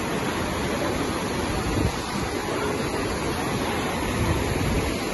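Fast floodwater rushing steadily through streets between houses, as an even wash of water noise.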